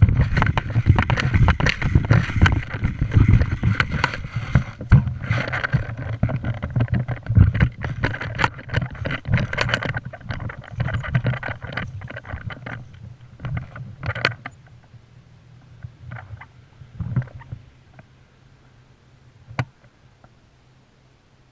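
Dense rustling, scraping and knocking from movement against a body-mounted action camera, dying down after about thirteen seconds and leaving a few isolated sharp clicks.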